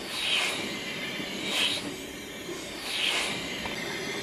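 Home-built model beam engine running slowly on compressed air: a hiss of air from its bobbin-valve tube and cylinder comes regularly, about every second and a half, with each stroke.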